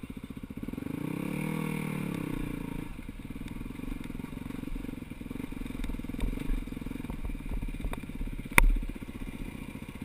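Four-stroke dirt bike engine running at low speed with a steady fast thump while descending a rocky trail, revving up and back down about a second in. Small knocks and clatter come from the rough ground, and there is one sharp loud knock near the end.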